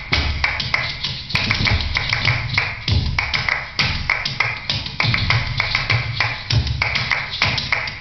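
Kathak footwork on a wooden stage: fast rhythmic foot strikes and tapping, over music with a deep recurring beat.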